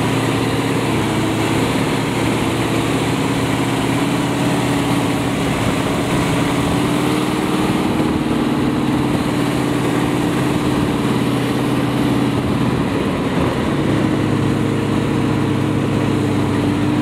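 M3A1 Stuart light tank's radial engine running steadily as the tank drives across a field, heard from atop its hull, with the engine pitch shifting slightly now and then.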